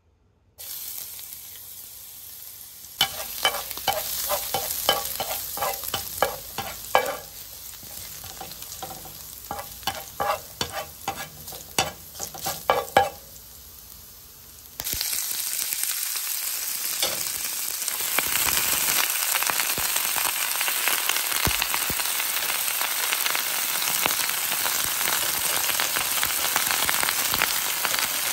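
Minced garlic frying in hot oil in a frying pan: a light hiss with a run of sharp crackles and pops. About halfway through, the sizzle turns suddenly much louder and steady, and it grows again a few seconds later as leafy greens are stir-fried.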